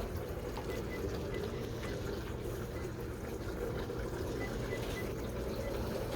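Steady indoor hall background noise: a low, even din with a constant hum beneath it.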